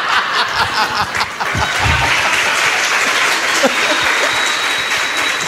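Live comedy-club audience applauding and laughing together in a steady wash of clapping.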